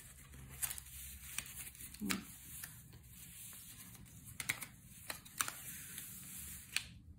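Paper pages of a small handmade concertina sketchbook being opened and unfolded by hand: scattered faint rustles and short clicks of paper and card against the table.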